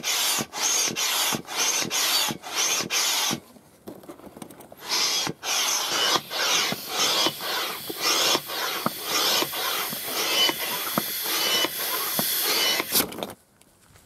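Hand-held piston air pump inflating a Gumotex Twist inflatable kayak: a rush of air with every stroke, about two to three strokes a second. Pumping pauses for nearly two seconds a few seconds in, resumes, and stops abruptly about a second before the end.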